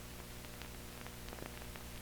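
Steady electrical hum and hiss with a few faint crackles: the noise floor of a soundless stretch of old newsreel film.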